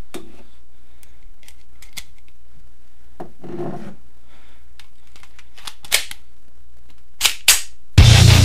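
A steady low electrical hum with scattered sharp clicks and a brief rustle, a few clicks louder near the end. Loud heavy rock music cuts in just before the end.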